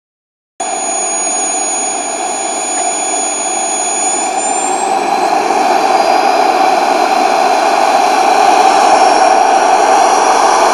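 Artes Rhino turbine of an RC model Eurofighter jet running: a steady rushing hiss with a high whistling whine, growing steadily louder. The sound cuts in abruptly about half a second in.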